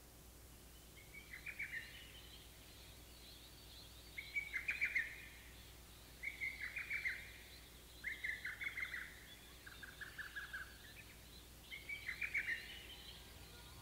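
Recorded birdsong at the opening of a song, played back from cassette tape on a TEAC C-2 deck: six short phrases of rapid chirping, one every second or two, each a quick run of notes.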